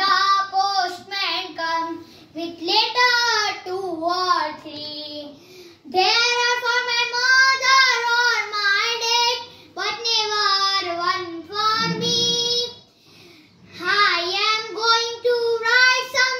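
A boy singing a children's poem solo with no accompaniment, in held-note phrases broken by short pauses, the longest about 13 seconds in.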